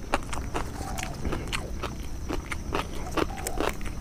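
Close-up chewing and crunching of raw leafy vegetables, crisp irregular crunches about four times a second.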